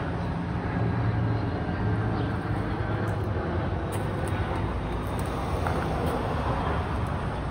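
Steady outdoor city background noise: a low, continuous rumble of traffic.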